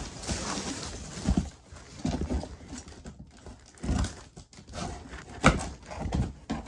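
Handling noise from unpacking a boxed animatronic figure: scattered knocks and bumps with rustling of cardboard and packing, the sharpest knock about five and a half seconds in.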